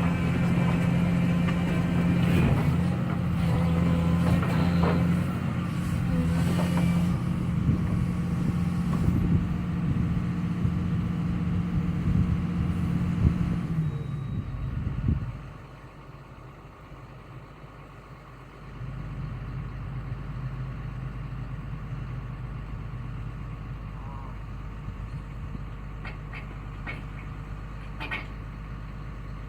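Excavator's diesel engine running hard, with scattered clanks and knocks, while logs are loaded onto a log truck. About fifteen seconds in the sound drops off sharply, and a few seconds later a quieter, steady low engine hum carries on.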